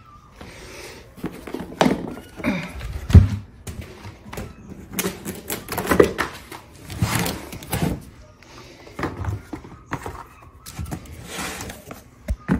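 Irregular knocks and thuds of objects being handled and set down, the loudest about three seconds in.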